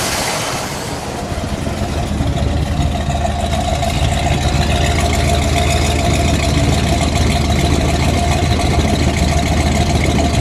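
1971 Buick Riviera GS's 455 V8 idling steadily, heard at the tailpipes: an even, low exhaust note. A brighter under-hood hiss fades out in the first second or so as the exhaust takes over.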